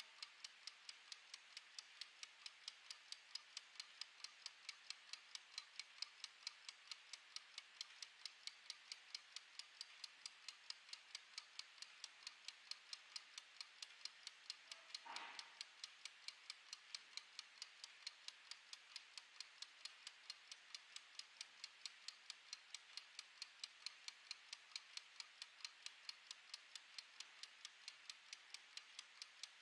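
Mechanical wind-up kitchen timer ticking as its clockwork runs down: a faint, quick, perfectly even tick-tock. A brief soft noise sounds about halfway through.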